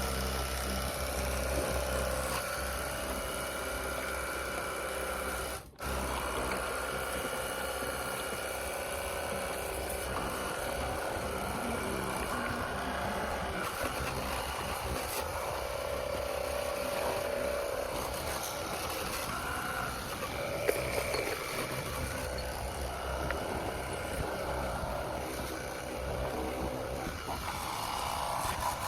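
Battery-powered portable pressure washer gun running steadily, its small pump motor humming with a pitch that wavers slightly. The sound cuts out briefly about six seconds in.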